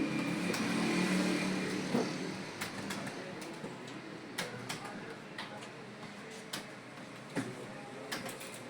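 Computer keyboard keys clicking at an irregular pace during touch-typing, sharp separate keystrokes over a steady background hiss.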